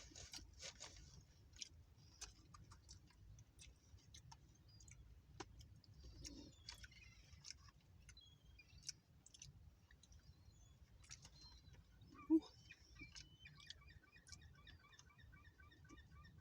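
Faint crunching and chewing of a hard taco shell, in scattered short clicks. From about three quarters of the way in, a fast run of repeated gull calls.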